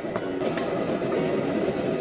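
Background music over the sizzle of minced pork and long beans stir-frying in a steel wok, with a sharp click of the metal spatula on the wok just after the start.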